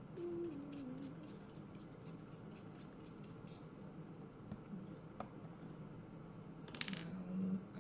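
Pump spray bottle of makeup setting spray misted onto the face: a rapid run of short spritzes in the first second or so, then a few more.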